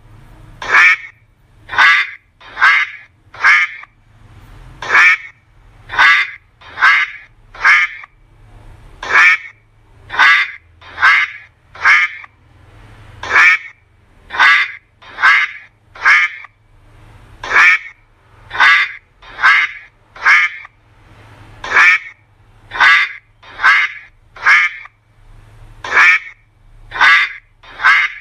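Duck quacking over and over, in quick runs of two to four loud quacks with short pauses between.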